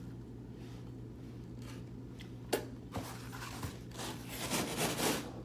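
Close-miked chewing of a mouthful of vegan pizza: wet, crackly mouth sounds with a couple of sharp clicks near the middle, growing denser near the end, over a steady low hum.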